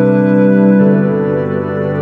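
Background music of sustained chords; the chord changes just under a second in.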